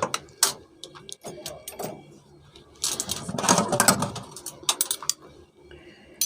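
Dishes and utensils knocking and clinking in a dishwasher's racks as it is loaded: scattered sharp clicks, with a longer rattle about three seconds in.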